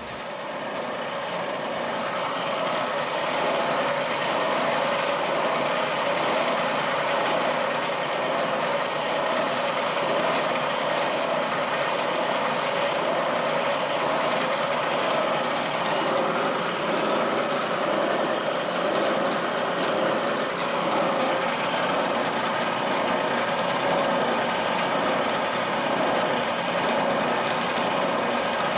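Milling machine spindle starting up and running steadily, with a motor whine and gear hum. It builds over the first few seconds and then holds at one level, turning an edge finder.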